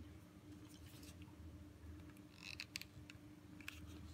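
Near silence with a faint steady hum, broken by a few faint small clicks and a brief soft rustle about two and a half seconds in: hands handling pins and pleated ribbon while hot-gluing.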